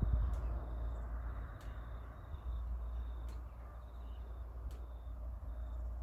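Outdoor ambience: a steady low rumble with faint, high chirps repeating every second or so.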